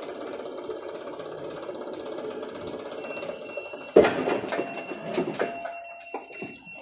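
Electric hydraulic pump of a Linde reach truck running with a steady buzzing hum, which stops about four seconds in with a loud clunk, followed by a few lighter knocks and a thin, high, steady tone.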